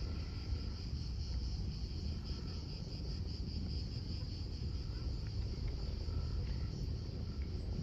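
Cicadas buzzing in a steady high drone, over a low rumble of wind on the microphone.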